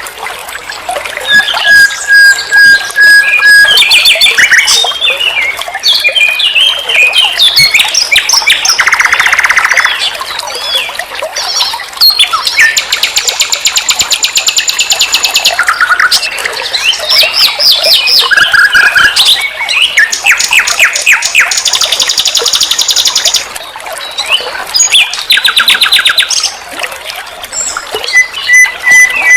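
Nightingale singing a varied song: held pure whistles, fast rattling trills high in pitch and runs of rapid repeated notes, phrase after phrase with short pauses between.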